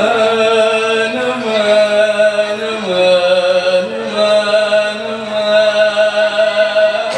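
A nasyid vocal group chanting in unison, a devotional Islamic song sung in long held notes that step up and down in pitch.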